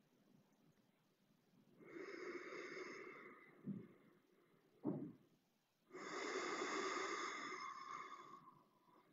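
A person's two deep, slow breaths through the nose, the second longer. Two soft low knocks fall between them.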